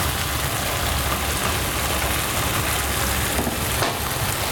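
Tomatoes, peppers and tomato paste sizzling in a frying pan on a gas stove as they are stirred with a wooden spatula, over a steady low hum.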